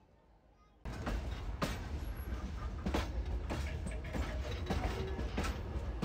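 Kuranda Scenic Railway train carriage running on the track: a steady low rumble with irregular creaks and knocks from the carriage and running gear, starting about a second in after a brief silence.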